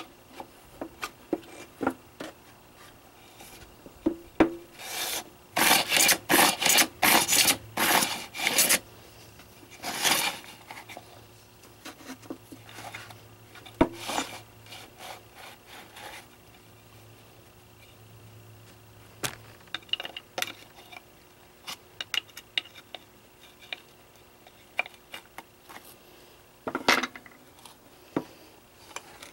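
Scraping, rubbing and light clicking of hands and a screwdriver working on an ATV's recoil starter housing and reel. A quick run of rubbing strokes about five to nine seconds in is the loudest part, with scattered clicks and scrapes after it.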